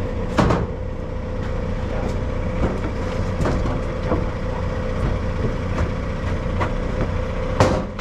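Telehandler's diesel engine running steadily with a constant hum, with two sharp knocks, one about half a second in and one near the end.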